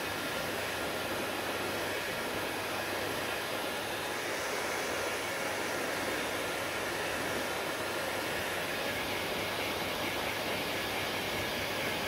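Hand-held hair dryer running steadily, a constant rush of blown air with a faint low hum, directed at damp hair.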